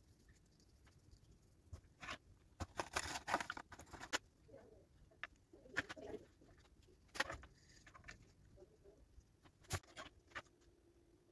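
Hands handling painting supplies on a desk: scattered taps, clicks and paper rustles, with a dense cluster a few seconds in and single sharper clicks later.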